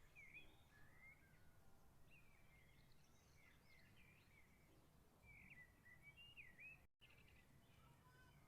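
Faint birdsong: small birds chirping again and again over a low, steady background noise, with a brief dropout near the end.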